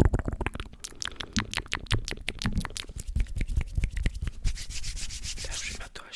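Close-miked ASMR mouth sounds: quick wet clicks and smacks, several a second, giving way to a hissing rustle near the end.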